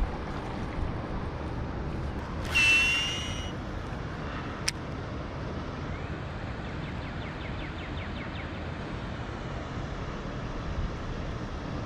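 Baitcasting reel cast and reeled in from a kayak: a single sharp click about five seconds in, then faint rapid ticking a few seconds later, over a steady outdoor hiss. The loudest sound is a high, steady whistled note lasting about a second, near the three-second mark.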